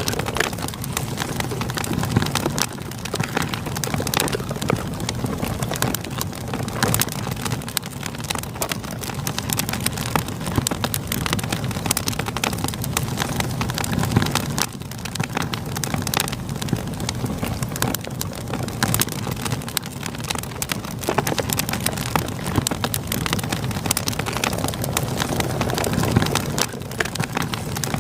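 Campfire crackling with frequent sharp pops over the steady rush of flowing river water.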